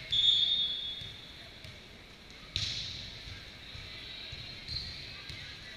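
Referee's whistle, one short blast under a second long, signalling the serve. About two and a half seconds later the volleyball is hit with a sharp smack that echoes in the gym.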